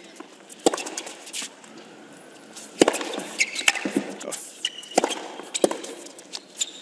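Tennis ball struck by racquets in rallies: a series of sharp pops about a second apart, with a few short high squeaks of shoes on the hard court.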